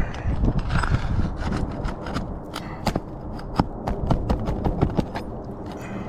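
Irregular clicks, taps and scrapes of hand tools working on asphalt roof shingles.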